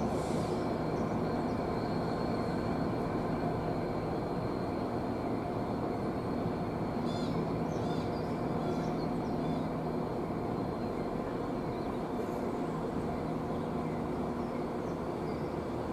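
Class 66 diesel locomotive's two-stroke V12 engine running with a steady low drone as the locomotive pulls slowly away, gradually fading a little. A few faint high chirps come about seven seconds in.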